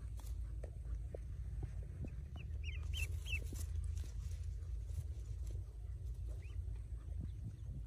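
Newly hatched Pekin ducklings peeping: a quick run of short, high peeps about two and a half seconds in and a single peep near the end, over a steady low rumble.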